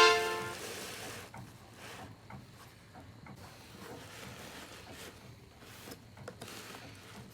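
A brass music sting cuts off just after the start, then faint rustling with small scattered taps and clicks from hands handling toy packaging.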